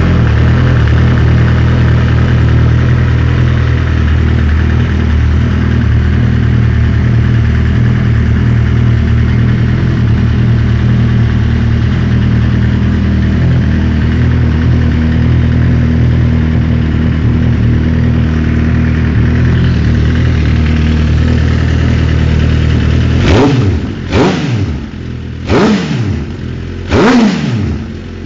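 Suzuki GSX-R1000 inline-four engine running steadily at held revs, then, about 23 seconds in, blipped sharply four times, each rev rising quickly and falling away.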